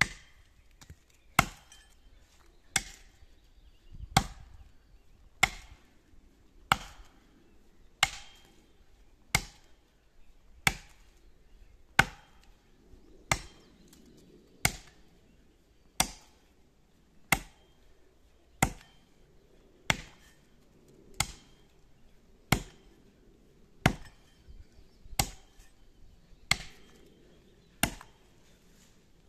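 Axe chopping into the trunk of a large standing pine tree, cutting the felling notch. The blows land in a steady rhythm, about one every second and a third, each a sharp crack that rings briefly.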